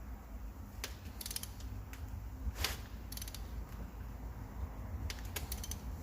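Ratchet wrench clicking in short runs of quick clicks separated by pauses, as an injector clamp bolt is turned through its angle-tightening stage after torquing.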